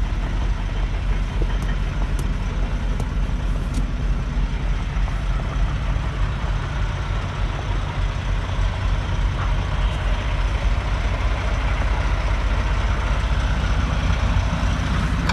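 Semi truck's diesel engine running steadily, a low hum under a constant rush of noise, with a few faint ticks in the first few seconds.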